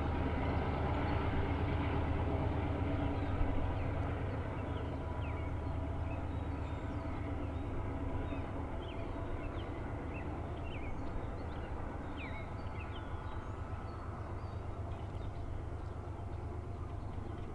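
Canadian Pacific diesel locomotive working as the rear distributed-power unit of a double-stack freight, its engine running hard in notch 8 as it pulls away. The engine drone fades slowly.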